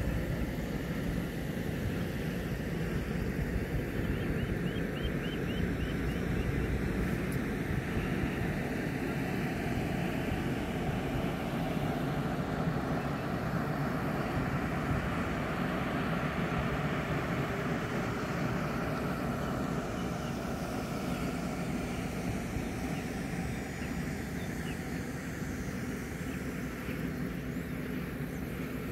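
Steady low drone of a ferry's engines mixed with wind rumbling on the microphone, easing slightly toward the end.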